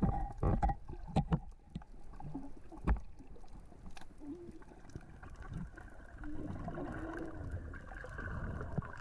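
Underwater sound of small rocks knocking and rolling across the sea floor in the current: sharp clicks and knocks, densest in the first second and a half, with a louder knock about three seconds in. Later come a few low wavering tones over a steady underwater wash.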